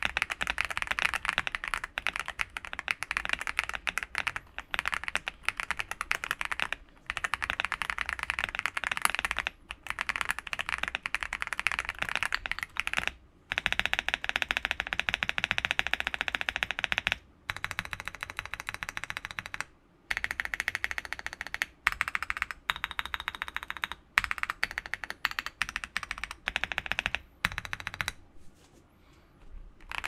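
Typing on an MW75 stacked acrylic mechanical keyboard with Aflion Inks V2 tactile switches, Akko ASA-profile keycaps, tuned Durock V2 stabilizers and foam and tape mods: fast, dense keystrokes in runs broken by short pauses, with a longer pause about two seconds before the end.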